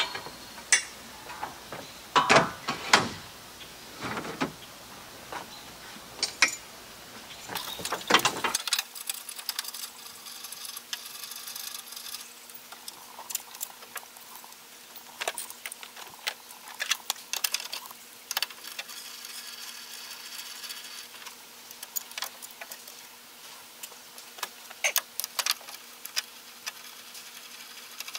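Clicks and clanks of metal hardware as clamps are fitted and tightened to hold an aluminum angle rail onto a pickup's bed rail. A few heavier knocks come in the first few seconds, then lighter, irregular clicking.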